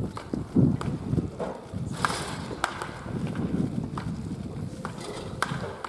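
Wooden bats cracking against baseballs hit off batting tees: about half a dozen sharp cracks at irregular intervals from several batters, over a low background rumble.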